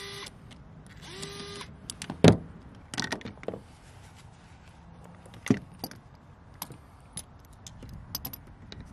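Cordless electric screwdriver running briefly twice, driving screws into RC car suspension parts: the first run cuts off just after the start, the second spins up about a second in and lasts about half a second. Then scattered clinks and knocks of small metal parts and tools being handled on a rubber work mat, the loudest knock about two seconds in.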